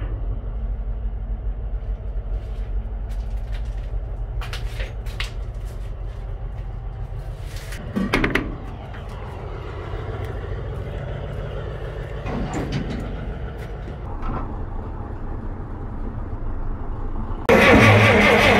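A steady low rumble with scattered metal knocks and clanks. Near the end a big Murphy diesel engine comes in suddenly and runs loud with an even, rhythmic low pulse.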